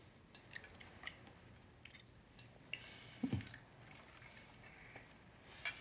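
Faint dinner-table sounds: scattered light clicks of cutlery on plates, with a soft low knock about three seconds in.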